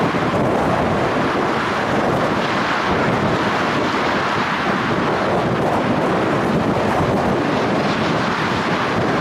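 Twin-engine widebody cargo jet's engines at takeoff thrust during liftoff and initial climb: a steady, even rushing noise, mixed with wind buffeting the microphone.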